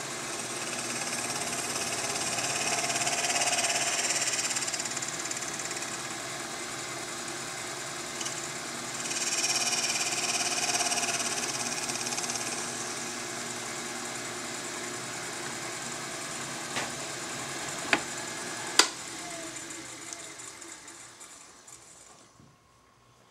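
Metal lathe running with a steady whine as the cutting tool faces off the end of a ferrule rod, with two louder stretches of cutting early on and about a third of the way in. Three sharp clicks follow, then the lathe is switched off and the spindle winds down to a stop near the end.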